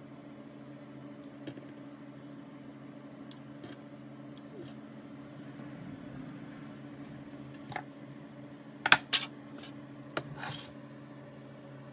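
Metal baking tray knocking and clattering on the countertop as it is handled and lifted, a few sharp knocks about nine seconds in, over a steady low hum.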